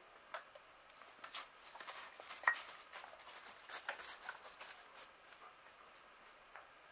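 A cat moving about: faint, irregular light taps and clicks of paws and claws on wood and debris, busiest in the middle, with one sharper click about two and a half seconds in.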